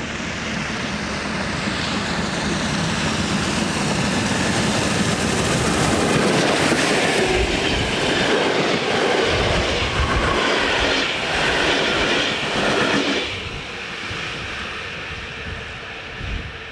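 Steam locomotive working hard as it approaches and passes, followed by passenger coaches rolling by with wheel clatter on the rails. The sound builds to its loudest around the middle, then drops off fairly suddenly about three-quarters of the way through as the train moves away.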